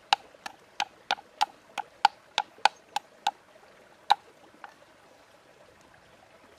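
Knife chopping through a hard cake of palm sugar on a wooden chopping board: a quick run of sharp knocks, about three a second, then one more knock after a short pause.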